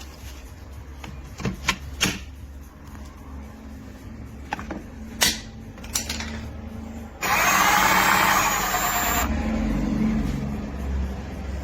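Several sharp clicks and knocks, then a power tool running for about two seconds, starting and stopping abruptly, with a lower rumble after it.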